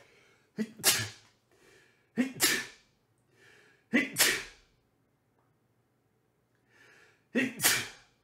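A man sneezing four times, each sneeze with a short in-breath before it; he puts the sneezing down to allergies.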